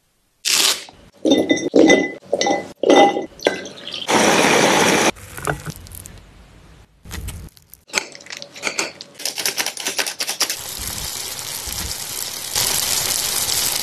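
Glass cups clinking against one another and the wire dishwasher rack as they are set in, several ringing clinks in the first few seconds. Later comes a steady sizzle of shrimp pan-frying in oil, growing a little louder toward the end.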